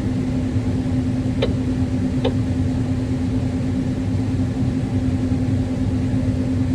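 John Deere combine running steadily while unloading corn through its unloading auger, heard from inside the cab as a constant drone with a steady hum. Two faint short chirps sound about one and a half and two and a half seconds in.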